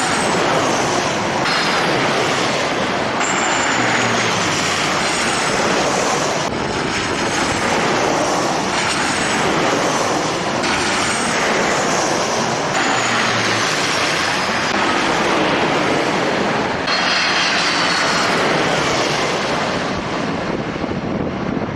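Jet airliner engines running loud and steady, with high whines gliding downward every couple of seconds.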